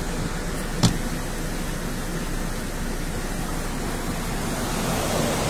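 Steady rushing noise of muddy floodwater pouring across the road, heard from inside a car, with one sharp click about a second in.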